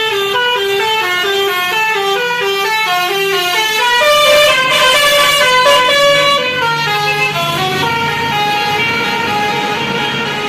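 Tour bus's telolet basuri musical horn playing a fast tune of short stepped notes, several a second. It starts suddenly and gets louder and higher in the middle.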